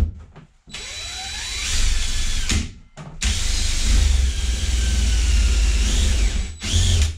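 Power drill driving a hole saw into the bus's sheet-metal rear panel: the motor whines and the saw grinds against the metal, its pitch sliding up and down as it bites. It runs in two stretches, broken by a short stop about two and a half seconds in.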